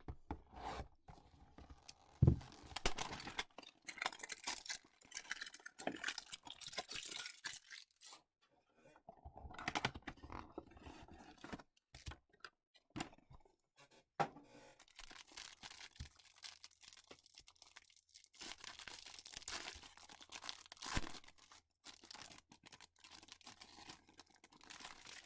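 A trading-card hanger box being torn open by hand: irregular bursts of tearing and rustling cardboard and wrapper, with sharp clicks and handling noises.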